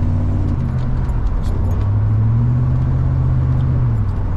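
Van engine and road noise heard from inside the cabin while driving, with the engine note stepping up in pitch about two seconds in and dropping back near the end.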